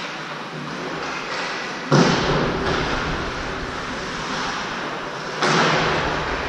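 Two loud bangs against ice-rink boards, about three and a half seconds apart, each ringing briefly in the arena, over steady rink background noise.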